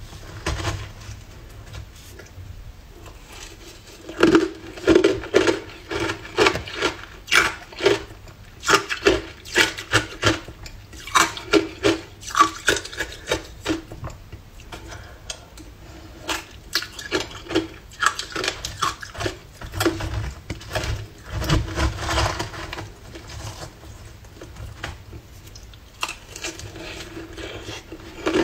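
Hard ice crunching as it is bitten and chewed, in quick runs of sharp cracks with short pauses between mouthfuls, along with a metal spoon clinking and scraping in a plastic tub.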